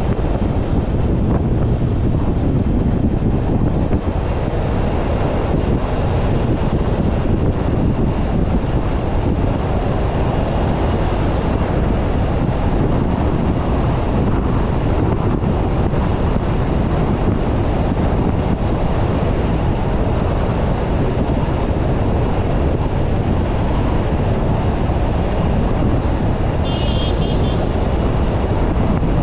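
Steady road and wind noise from a car driving along a highway: a dense, even rush of tyres on tarmac and air, heaviest in the low range. Near the end there is a brief faint high chirp.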